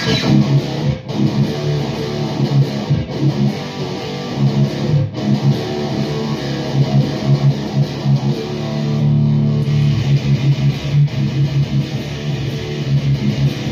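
Heavily distorted electric guitar played loud through a REVV G4 high-gain distortion pedal and a 4x12 cabinet: chunky, low-heavy strummed riffing that starts abruptly, with a few short breaks.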